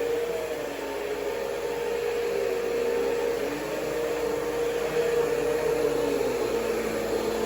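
Vacuum cleaner running with a steady hum as it is pulled backward across the floor.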